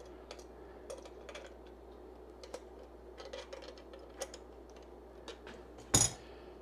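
Slip-joint pliers working the hex nut off a BNC bulkhead connector on a small metal case, with faint, irregular metal clicks. About six seconds in there is a single louder clatter as the pliers are put down on the bench mat.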